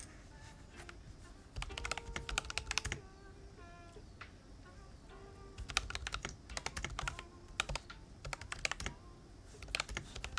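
Typing on a custom mechanical keyboard with O-rings under the keycaps, in several bursts of rapid keystrokes with short pauses between. The bottom-out is damped, so the clicks heard are mostly the keys springing back up.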